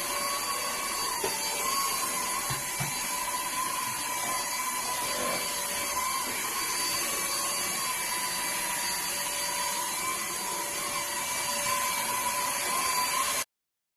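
Russell Taylors Vortex cordless vacuum cleaner's 500W brushless motor running, a steady high-pitched whine that wavers slightly, over airy hiss. It cuts off suddenly near the end.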